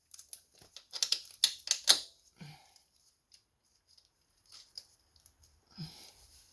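Light clicks and clinks of small metal parts being handled: washers and a chain roller being fitted onto the roller's bolt. There is a quick run of clicks in the first couple of seconds, then a pause, then a few more near the end.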